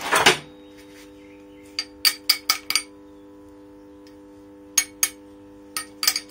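Steel parts clattering and clinking against a steel workbench top as they are handled and set in place. A short scrape-and-clatter at the start, then clusters of sharp metallic clinks.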